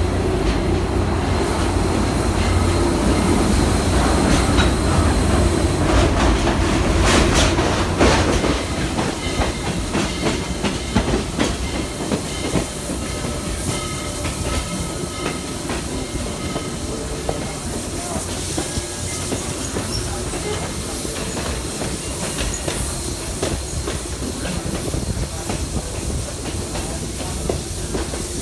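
Passenger train running on rails, its wheels clicking over the rail joints, with a heavy rumble that eases about eight seconds in.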